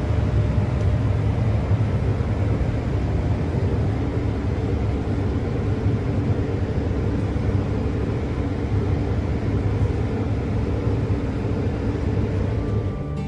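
New Holland combine harvester running steadily, a constant low engine and machinery drone with no change in speed.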